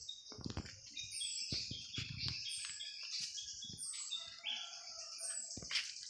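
Forest ambience: a steady high insect buzz under several birds calling, one of them repeating a short, high, falling note about every second and a half. Footsteps rustle through leaf litter, mostly in the first half.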